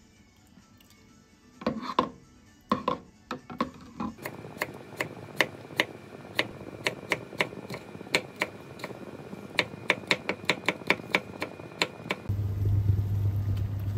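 Kitchen knife slicing a cucumber on a wooden cutting board: steady knocks of the blade on the board, about three a second. A few irregular clatters come before it, and a steady low hum takes over near the end.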